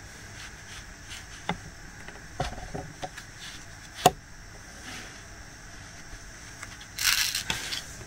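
Scattered light clicks and taps from handling a diamond-painting ornament while drills are placed, with one sharp click about four seconds in and a short scraping rustle about seven seconds in.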